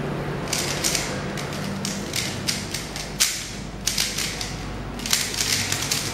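MoYu Aolong v2 3x3 speedcube being turned rapidly by hand, giving quick uneven runs of plastic clicks and clacks as the layers snap round, over a low steady hum.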